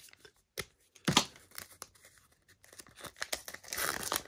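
Foil wrapper of a Panini Mosaic trading-card pack torn open, with a sharp rip about a second in. The wrapper crinkles near the end as the cards are slid out.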